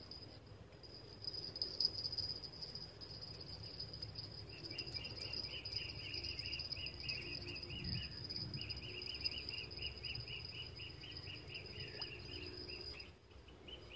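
Crickets calling at dusk: one steady, high, unbroken trill, joined about four or five seconds in by a second insect chirping in rapid pulses, over a low background rumble.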